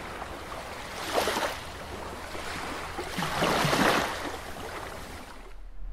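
Rushing water, like surf, a steady wash that swells twice: briefly about a second in, and longer from about three to four seconds in, then fades out.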